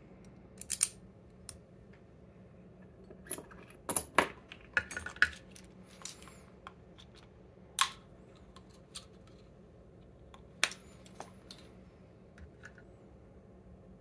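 Scattered sharp metallic clicks and taps from handling a brass TESA T80 dimple lock cylinder and its small tools while it is shimmed open for disassembly, with a quick run of clicks about four to five seconds in.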